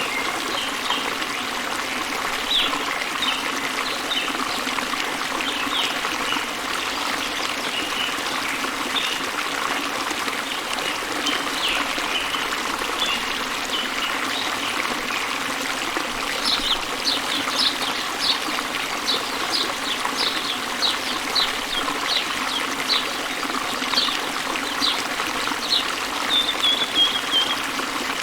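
A waterfall running steadily, with birds chirping over it in short, high chirps that come thicker from about halfway in and end with a brief falling trill.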